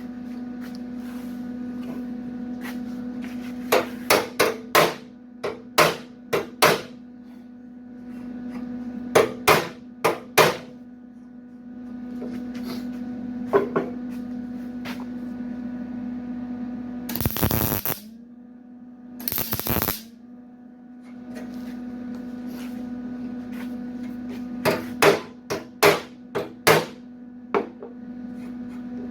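Hammer striking sheet steel in several quick clusters of blows, with two short bursts of tack welding about two-thirds of the way through, over a steady electrical hum.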